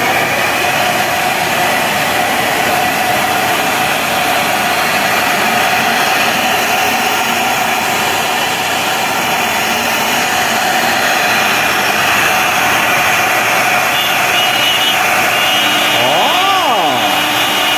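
CNC router spindle, set to 18,000 rpm, routing a white melamine board with its dust extraction running: a loud, steady mechanical noise with a constant whine. Near the end a brief rising-and-falling whine is heard.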